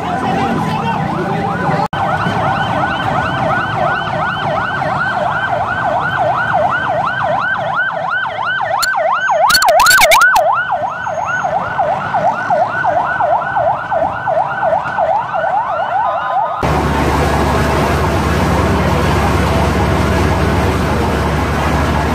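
Emergency vehicle siren wailing in a fast, even up-and-down yelp, with a brief loud burst of noise near the middle. After a sudden cut, a steady noisy rumble with a low hum takes over.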